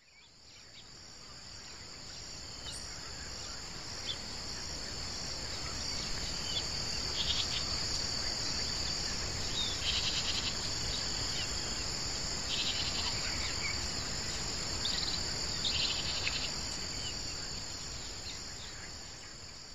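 Steady high chorus of trilling insects, with short bird calls now and then. The ambience fades in at the start and fades out near the end.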